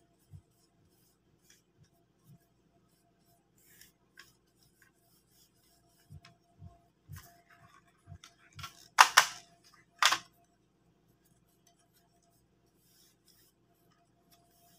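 Kyocera FS-6525 copier drum unit's housing being handled: several light knocks, then two loud, short, sharp clacks about a second apart.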